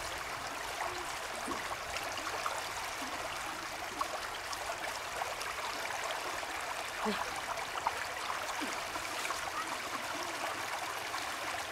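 Shallow rocky stream running steadily over stones, a constant rush of flowing water with a few faint short ticks.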